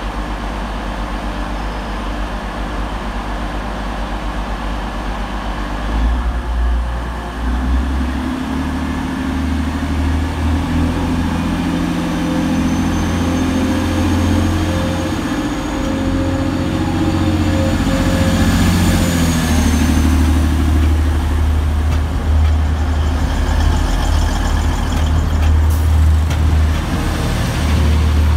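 Class 185 diesel multiple unit idling at the platform, then its diesel engines open up about six seconds in as it pulls away. The low engine note grows louder and shifts in pitch as the train gathers speed, with a faint high whine over it for a while.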